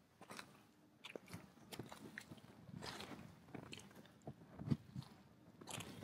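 Footsteps crunching on a beach, a quiet, irregular series of short crunches and clicks underfoot.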